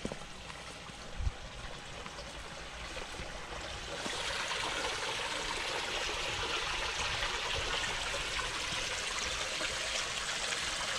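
Water streaming into a filled above-ground pool and splashing on the surface, louder from about four seconds in; a brief thump about a second in.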